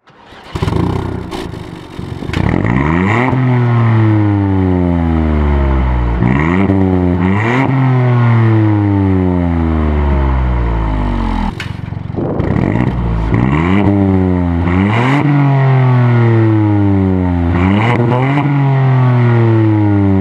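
Ford Fiesta ST's 1.5-litre three-cylinder engine free-revving through its twin exhaust tips at a standstill: repeated quick blips of the throttle, each rising sharply and falling back slowly. The exhaust is in Normal mode for about the first half and in Track mode after a break about halfway through.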